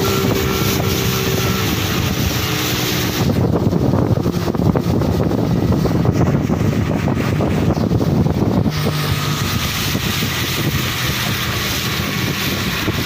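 Speedboat's outboard motor running steadily with the boat under way, with wind rushing over the microphone, heaviest from about three to nine seconds in.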